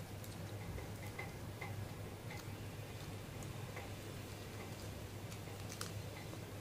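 Faint, scattered small ticks and clicks over a low steady hum, as the brass idol and its sequin-trimmed satin clothes are handled.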